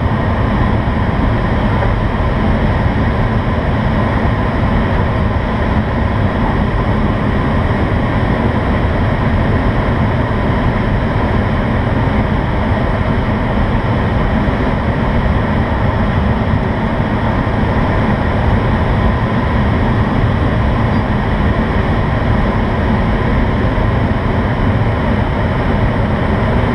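Steady rush of airflow over the cockpit and canopy of an IS-28B2 two-seat glider in flight, with no engine running.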